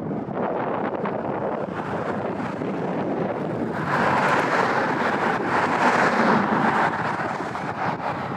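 Strong wind buffeting the microphone, a steady rushing noise that swells into a louder gust about four seconds in and eases near the end.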